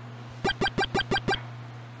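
A rapid run of six short, identical pitched beeps, about six a second, over a steady low hum.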